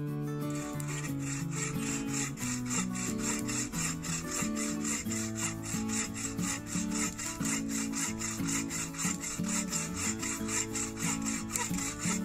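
Hand pack saw cutting through a dry deadfall log in quick, even rasping strokes, several a second. Background music plays underneath.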